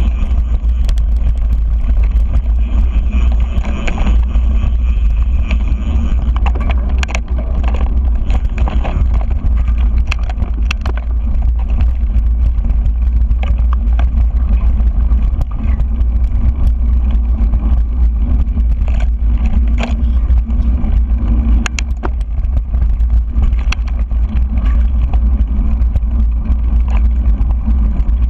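Mountain bike rolling over a dirt singletrack, with a steady low rumble of wind buffeting the handlebar-mounted camera's microphone, tyre noise on the dirt, and scattered clicks and rattles from the bike over bumps.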